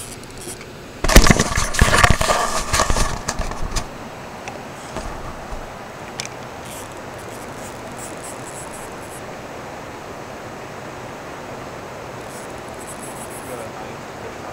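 Handling noise from the camera being moved: loud clattering knocks and scrapes, sharpest about a second in, which die out after about three seconds. A steady even rushing hiss follows.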